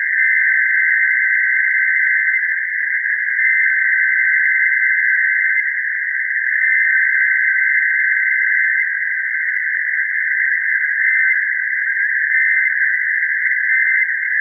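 Unbroken electronic data tone, shifting rapidly between two high pitches in the manner of an Emergency Alert System SAME data burst, steady and loud with nothing else under it.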